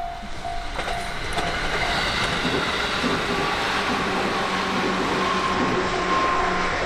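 Train running on rails: a steady rail rumble and rattle with a few steady whining tones in it, starting abruptly.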